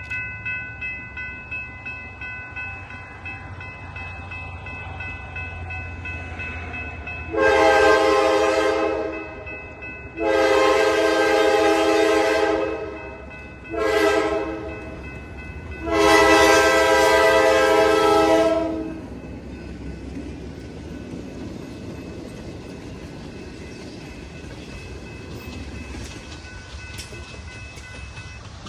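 Grade-crossing bell ringing while a diesel locomotive's multi-note air horn blows the crossing signal: two long blasts, one short, then one long, about 7 to 19 seconds in. After the horn, the train rumbles past the crossing.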